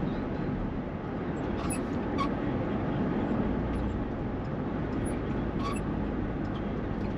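Steady low road rumble inside a moving van, with a few short, faint squeaks from a Permobil power wheelchair riding in it.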